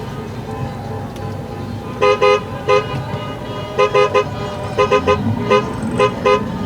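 Car horn honking in short beeps, in quick clusters of two or three, starting about two seconds in and repeating to the end, over a steady low rumble.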